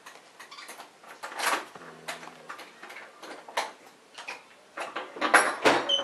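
A sparrow tapping and fluttering against a wall clock's glass face, striking at its own reflection: irregular sharp taps, the loudest about a second and a half in, and a quick flurry of them near the end.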